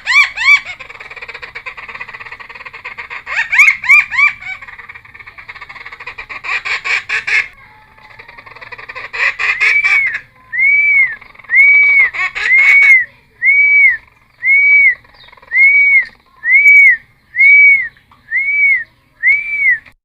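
Cucak timor (a friarbird) singing loudly: a dense jumble of chattering, whistled notes for about seven seconds, then after a short gap a run of about ten identical arched whistles, a little under one a second.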